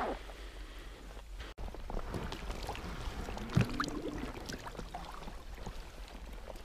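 Water sloshing and gurgling around an inflatable float tube as the angler kicks along with swim fins, with small splashes and one sudden knock a little past halfway.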